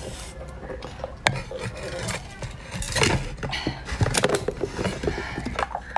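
Hard ice cracking, clicking and knocking: a large frozen ice block being bitten and handled. It gives a string of sharp cracks, the loudest about a second in.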